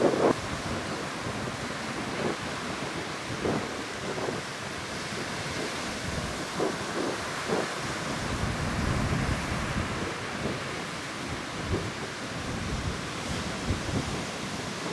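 Heavy surf breaking steadily on a sandy beach, driven by a strong monsoon wind, with short gusts buffeting the microphone now and then.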